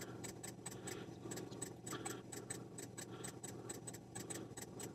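Faint, rapid, evenly spaced clicking, about six clicks a second, over a low steady hum.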